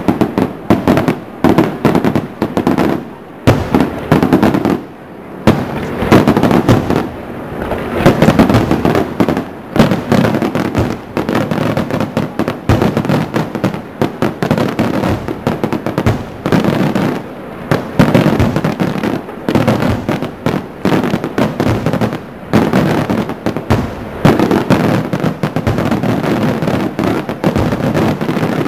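Fireworks display: aerial shells bursting in quick succession, a dense, unbroken run of bangs.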